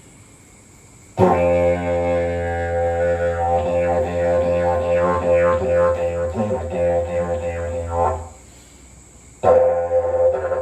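Didgeridoo played as a low drone with rhythmic pulses, imitating an animal jumping, listening and scratching. It starts about a second in, stops about eight seconds in, and starts again near the end.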